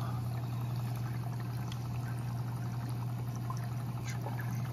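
Water trickling and splashing through a nano reef aquarium's rear filter chambers, with the steady low hum of its running pumps underneath.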